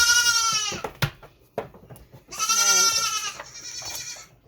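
Young dairy goat doe bleating twice, each call about a second long, the second coming about two seconds after the first. The first-freshening doe is protesting as her udder is being washed.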